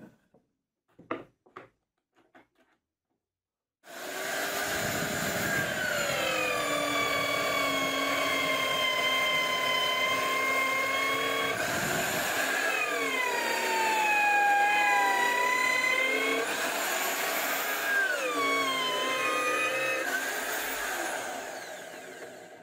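Electric router in a homemade overhead stand running and plunging a bit into a wooden board, a steady high whine whose pitch sags a few times as the bit bites into the wood. It starts about four seconds in after a few light knocks of the board being handled, and fades near the end.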